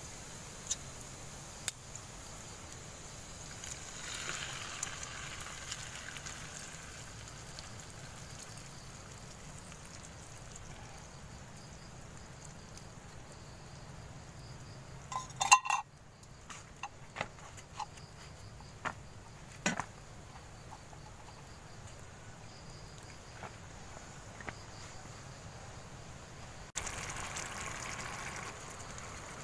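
Tinned sardines in sauce being poured and scraped from the can into a small metal camping pot, with light clinks of the tin against the pot, over a steady hiss. About halfway there is a short, sharp clatter, and near the end a brighter steady hiss comes in.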